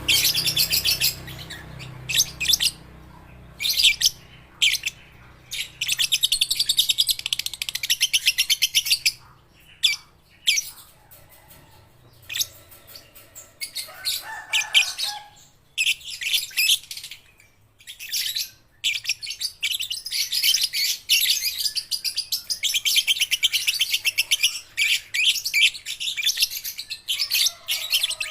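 Young lovebird chattering in long runs of very rapid, high-pitched trills, broken by short pauses, with one long unbroken run through the last third.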